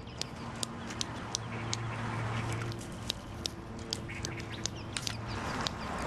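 Sharp tongue clicks made with the mouth for echolocation (flash sonar), about three a second, over a low steady hum.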